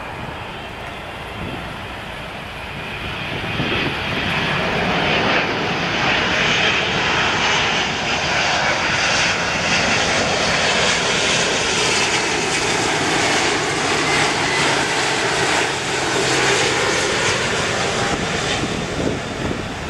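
Boeing 777 twin-engine jetliner flying low on final approach with gear down: jet engine noise swells about four seconds in and holds loud, with a tone that glides down in pitch as the aircraft passes and moves away.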